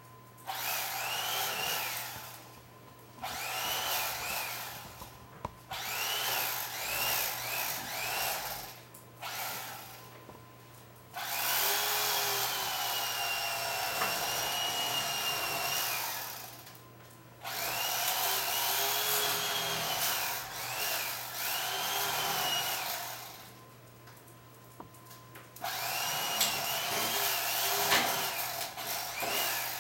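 Electric carving knife carving a roast turkey, run in about six spurts of one to six seconds with short pauses between, its motor whine wavering in pitch.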